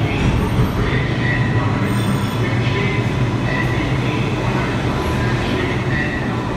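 R142A subway train rolling slowly into the station, its wheels rumbling on the rails with short high squeals on and off.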